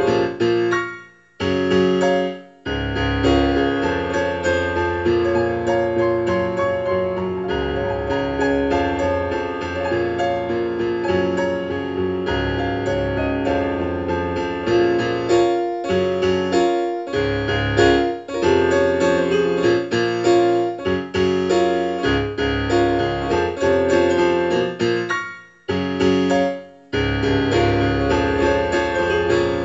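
Solo piano playing a sonata movement: dense, driving passages broken by short rests, twice near the start and twice near the end.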